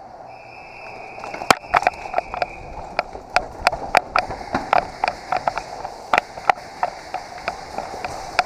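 Quick footsteps of an airsoft player moving off at the start of a game, an uneven run of sharp knocks about two to three a second. A steady high tone sounds for the first two seconds or so.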